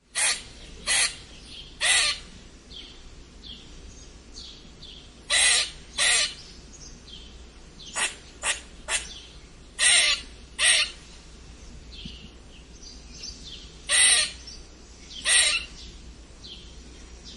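Squirrel giving short, rasping squeaks, about a dozen, singly and in quick twos and threes, with fainter short calls in between.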